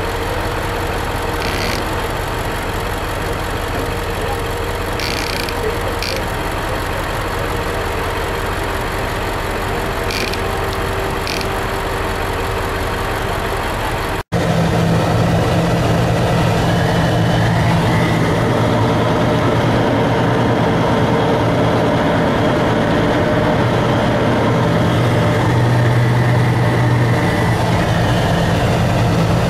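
Engine idling steadily, with a few short, higher sounds over it. After a sudden cut comes a louder, steady low engine drone, heard from inside the cab of a vehicle driving along a dirt road.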